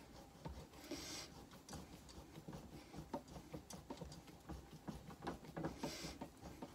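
Hand-turned threading die cutting an M10 × 0.75 thread on an ebonite tenon, guided by a tailstock die follower on a small lathe: faint, irregular small clicks and ticks as the die bites. A short rustle comes about a second in and again near the end.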